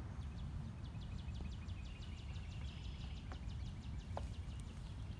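A bird's rapid trill of high ticks, about nine a second, lasting some three seconds, over a steady low rumble.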